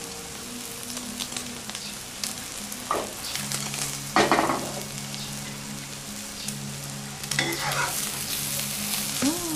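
Thai omelette frying in deep oil in a non-stick wok, a steady sizzle, with a couple of short scrapes from a metal spatula against the pan.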